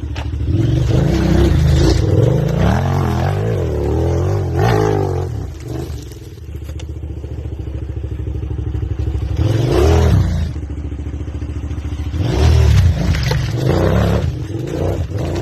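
KTM 990 Adventure's V-twin engine revving, its pitch rising and falling several times, with a steadier stretch of running between the revs.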